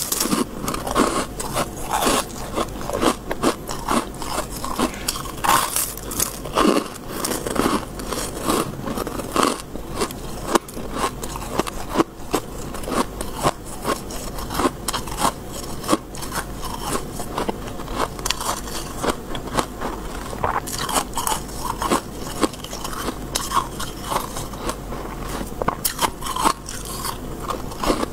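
A person biting and chewing mouthfuls of powdery freezer frost, close to a clip-on microphone: a dense, irregular run of crisp crunches.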